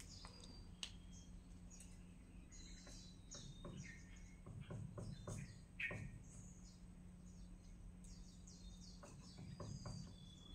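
Hushed, near-silent room tone with faint scattered bird chirps and tweets and a few faint, sharp taps, over a steady low hum.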